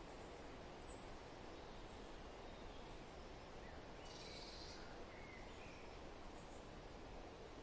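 Steady, soft wind ambience with faint bird chirps over it, one brighter call about four seconds in.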